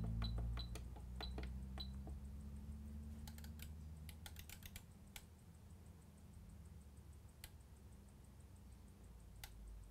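Keys clicking on a handheld Metrel portable appliance tester (PAT tester) as its menu is worked, about six quick presses in the first two seconds, each with a short high beep. Further scattered clicks follow while the lead test runs, over a faint low hum.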